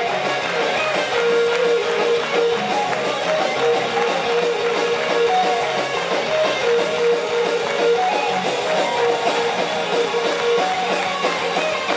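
Live band playing an upbeat polka song: electric guitar and a held melody line, with hand-clapping keeping a steady beat.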